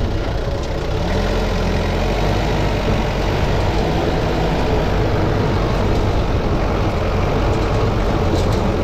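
Engine of a stripped-down vehicle running steadily while it is driven slowly along a rough dirt track. Its pitch rises a little about a second in.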